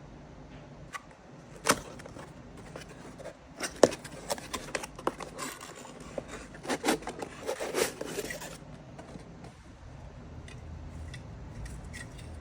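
Packaging being opened and handled: one sharp click, then several seconds of dense clicking, scraping and rustling that stops about two-thirds of the way in, leaving a few faint ticks.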